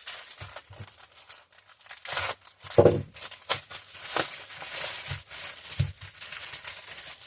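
Parcel packaging being handled and pulled open: irregular crinkling, rustling and tearing, with a louder knock about three seconds in.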